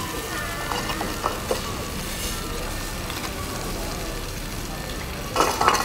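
Beaten-egg Thai omelette sizzling steadily as it fries in hot oil in a nonstick pan, with a few light spatula clicks about a second in and a brief louder noise near the end.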